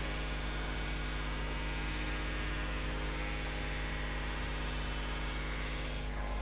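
Steady electrical mains hum with hiss, the background noise of an old videotape recording. A brighter hiss comes in at the start and cuts off abruptly near the end.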